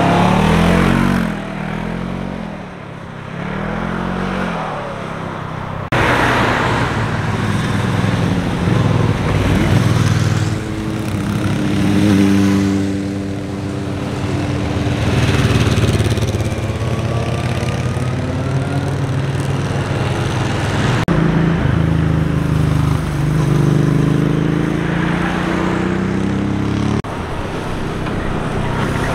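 Motorcycles and a three-wheeled roadster passing one after another through a tight bend, their engines rising in pitch as they accelerate out of the curve, with gear changes. The sound breaks off abruptly several times between passes.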